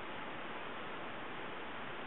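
Steady, even hiss with no distinct events standing out.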